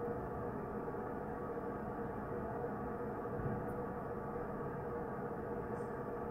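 Steady rushing of water filling the reservoir behind a small sand-and-brick model dam, with a steady hum underneath.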